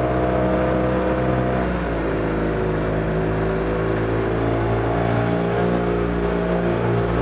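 Arctic Cat Wildcat Trail side-by-side's engine running steadily under way, heard from the cab. Its pitch dips and shifts about two seconds in, then holds steady again.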